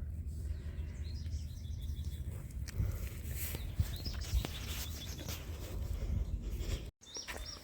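Small birds chirping in short high calls over a steady low rumble on the microphone, with a few faint clicks. The sound drops out completely for a moment near the end.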